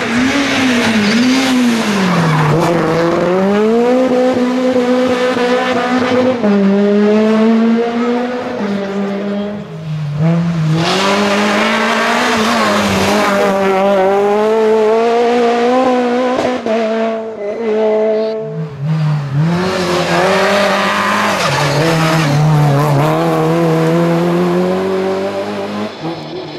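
Rally car engines revving hard through a stage, the pitch climbing and falling again and again with gear changes and braking, with tyres squealing.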